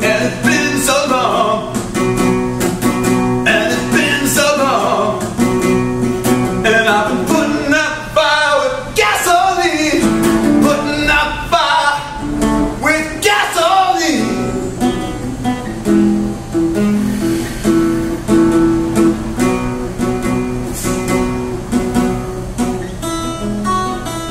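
A man singing to his own strummed acoustic guitar. The singing stops about fourteen seconds in and the guitar strums on alone.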